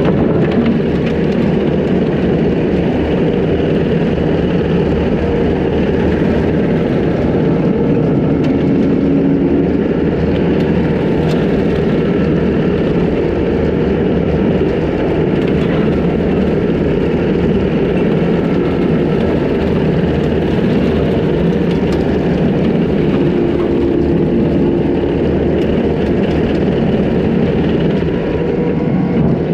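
Takeuchi TL250 compact track loader's diesel engine running steadily at working throttle, driving a hydraulic skid-steer brush cutter that is mowing through grass and brush.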